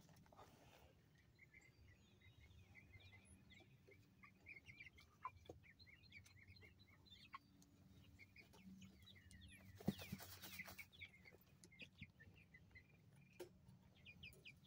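Young Barred Rock and Black Australorp chickens dust bathing, giving faint, quick high chirps and soft trills. About ten seconds in there is a brief scratchy rustle, the loudest sound in the stretch.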